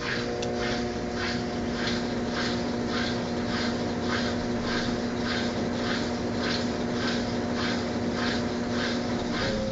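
Brastemp Clean 10 kg top-loading washing machine in its spin cycle: a steady motor whine with a swishing pulse about two to three times a second as the drum turns.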